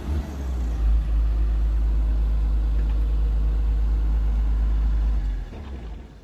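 Komatsu PC210-8 excavator's six-cylinder diesel engine running with a steady, heavy low rumble, which falls away near the end.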